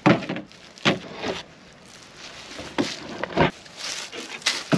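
Camp cooking gear being handled and set down on a truck tailgate: about six short separate knocks and clatters, with quiet in between.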